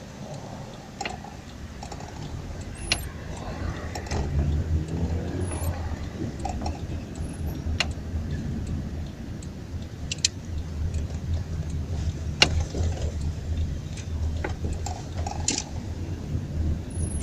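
Daewoo Nexia car heard from inside the cabin in slow traffic: a low engine rumble that grows louder about four seconds in, with scattered sharp clicks and rattles.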